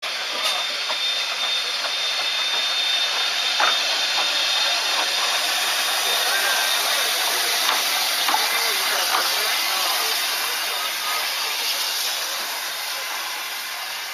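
Narrow-gauge steam tank locomotive standing in steam, with a loud, steady hiss of escaping steam that eases a little near the end.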